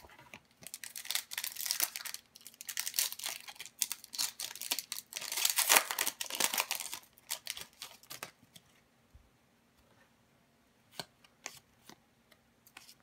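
Foil wrapper of a hockey card pack crinkling as it is handled and torn open, loudest about six seconds in. After that it goes quiet, with a few faint clicks of the cards being handled.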